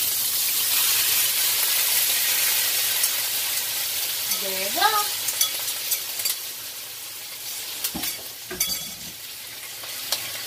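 Finely diced beef sizzling hard in hot coconut and chili oil in a wok, a steady hiss that eases a little towards the end. A couple of sharp knocks come near the end.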